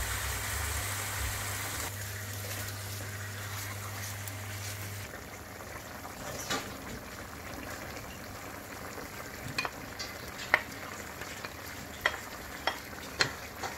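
Beef and prawns sizzling in a non-stick wok: a steady frying hiss. About five seconds in it drops abruptly to a softer, wetter simmer, with a few light clicks of wooden utensils against the pan near the end.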